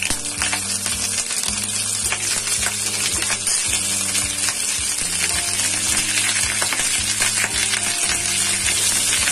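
Cauliflower florets sizzling in hot mustard oil in a kadai, with many small crackles and pops as pieces drop into the oil. The sizzle grows a little louder as more florets go in.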